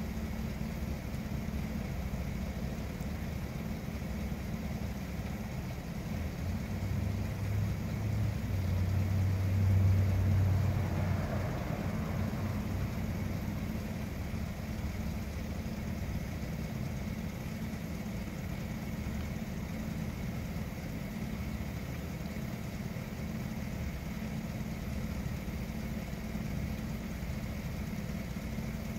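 A vehicle engine idling steadily with a low hum, which swells louder for a few seconds about a third of the way through.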